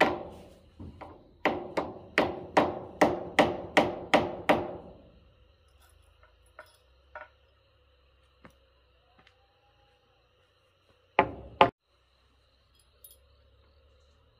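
A hammer striking repeatedly, about a dozen blows at roughly two and a half a second, each ringing briefly, then a few light taps and a quick double blow near the end.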